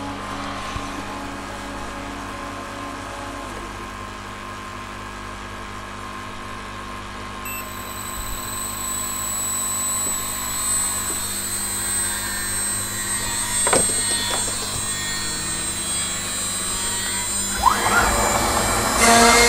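CNC router spindle running with a steady high whine that sets in about a third of the way through, over the hum of the machine. Near the end the end mill starts cutting into 18 mm plywood and the sound grows louder and rougher.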